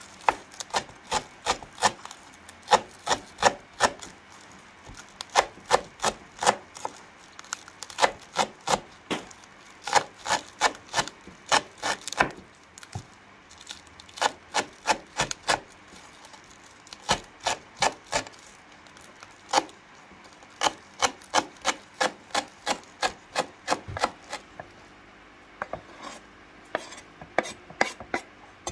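Kitchen knife chopping green onions on a wooden cutting board. The blade knocks against the board in quick runs of about three a second, with short pauses between the runs.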